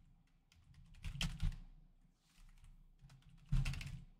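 Quick, sharp clicks and taps in two bursts, one about a second in and another after about three and a half seconds.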